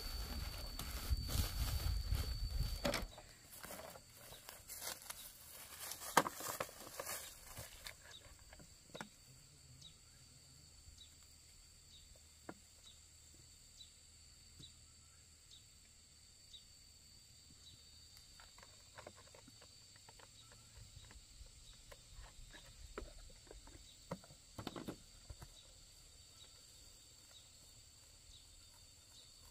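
Faint rustling with scattered light clicks and knocks from a person moving and handling things on dry corn leaves, over a faint steady high-pitched tone. A louder low rumble with dense crackling fills the first three seconds.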